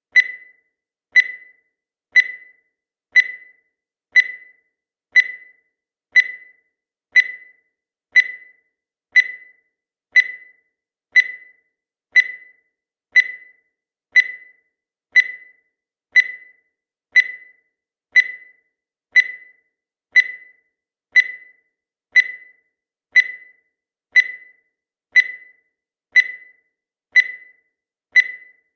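Countdown timer sound effect: a short, high-pitched beep once a second, each starting sharply and dying away quickly, steady and even throughout.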